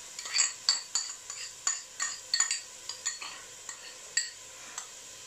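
A spoon scraping and tapping against a plate, knocking the last bits of chopped onion into a pot: a run of quick, irregular clinks and scrapes, about two a second, that stops near the end.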